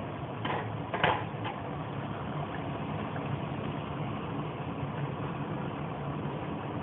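Steady noise of a lit stove burner under a covered pot of meat stewing in tomato sauce, with a few light clicks about half a second to a second and a half in.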